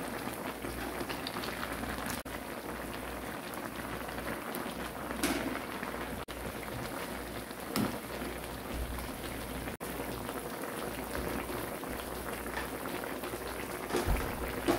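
Spicy Korean braised chicken stew (dakbokkeumtang) bubbling at a steady boil in a wide cast-iron cauldron-lid pan, a continuous crackling, popping bubble. A few brief louder sounds stand out, one near the middle as a ladle goes into the pot.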